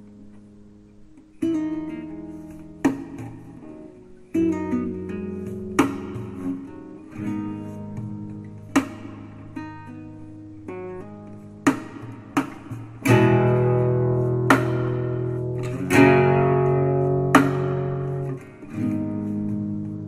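Instrumental acoustic guitar music: plucked and strummed chords coming in about a second and a half in, with a sharp tick at a slow, regular beat, growing fuller and louder in the second half.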